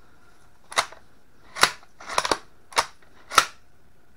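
Handling noise: sharp crackles and clicks, about six of them at uneven intervals, as an 1891 Carcano carbine is turned over on a sheet of bubble wrap.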